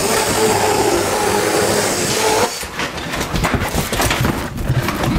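A steady rushing noise for about two and a half seconds, then the crackle and rustle of cardboard and glossy paper being handled and leafed through.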